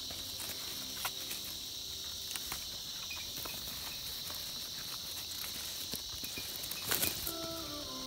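Crickets or other insects chirring steadily in a high, even drone, while leaves and vines rustle and crackle with scattered clicks as bitter gourds are picked by hand; the rustling is loudest about seven seconds in.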